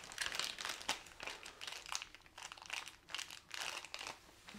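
Small clear plastic packet crinkling as it is handled and opened, in a run of short, irregular rustles.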